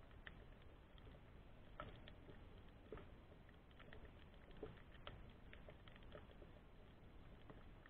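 Faint underwater ambience recorded by a submerged camera: scattered, irregular soft clicks and crackles over a low rumble.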